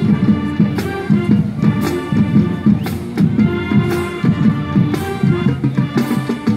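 Music with drum hits and held melody notes, played as the accompaniment to a pom-pom dance team's routine.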